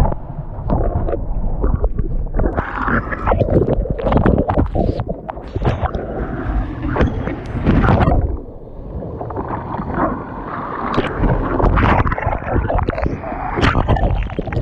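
Water splashing and gurgling close to the microphone, with irregular sloshes over a low rumble of wind buffeting.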